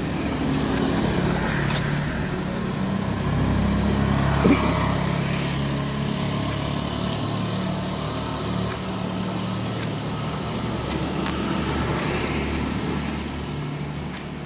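A motor vehicle's engine running close by, its low hum shifting in pitch, over a steady hiss of rain. There is a brief click about four and a half seconds in.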